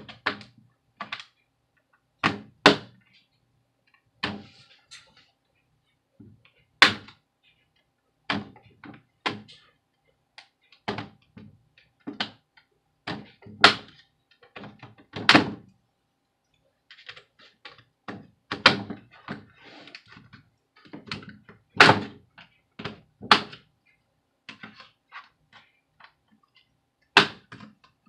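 Plastic snap-fit clips of an HP Chromebook 14's case clicking and popping loose as a plastic opening tool pries the keyboard deck away from the bottom cover. Irregular sharp clicks and snaps, one or two a second, some much louder than others.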